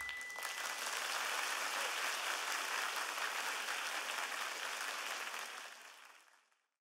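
Concert audience applauding just after the band's song ends, with a last ringing note dying away in the first second. The applause fades out near the end.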